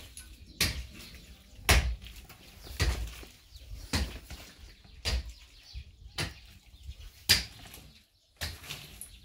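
A long-handled digging tool swung into packed, stony earth again and again: about eight dull thuds, roughly one a second, as the ground is broken up.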